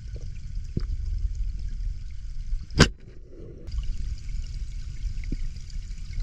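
Underwater ambience of a freshwater lake: a steady low rumble of moving water with faint crackling, and one sharp, loud click just under three seconds in.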